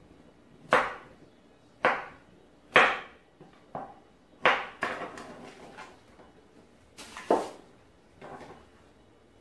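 Kitchen knife chopping the ends off raw carrots on a wooden cutting board: about seven sharp, separate chops, roughly one a second, with a short pause in the middle.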